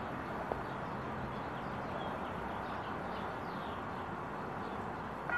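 Steady outdoor background noise with faint bird chirps scattered through it, and a single faint tick about half a second in.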